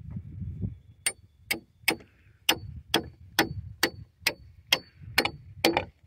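Hammer striking steel hardware, a bolt and hinge strap set on a cedar post, in about eleven even blows roughly two a second, each with a short metallic ring, starting about a second in.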